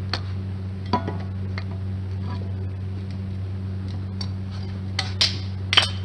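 Sharp metallic clicks and clinks of metal parts and tools being handled, a few near the start and a louder cluster near the end, over a steady low electrical hum.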